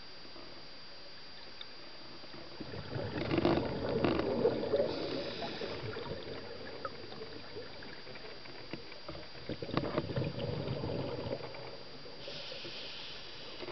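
Scuba diver's regulator exhaling bubbles, heard underwater: two bubbling bursts about six seconds apart, each followed by a brief higher hiss, over a steady faint hiss.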